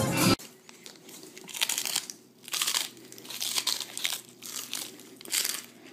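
Crisp lettuce leaf crunching as it is bitten and chewed, in a string of short crunches roughly a second apart.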